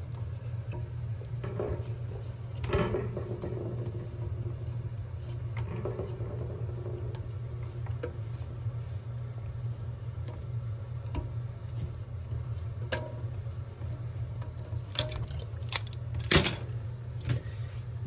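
Hand-unscrewing the toilet supply line's plastic coupling nut from the fill valve shank and pulling the line free: light clicks, rubs and rattles of plastic and metal, with a few sharper clicks near the end. A steady low hum runs underneath throughout.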